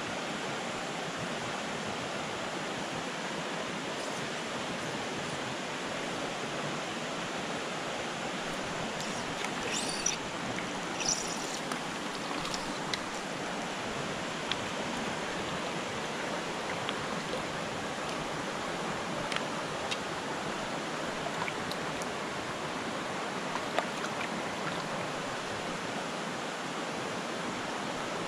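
Shallow mountain creek running over rocks and cobbles in a steady rushing riffle, with a few faint short clicks here and there.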